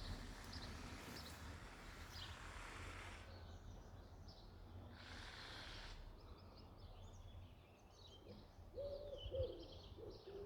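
Faint outdoor birdsong: small birds chirping in the first few seconds, then from about eight and a half seconds a low hooting bird call repeated several times in short notes.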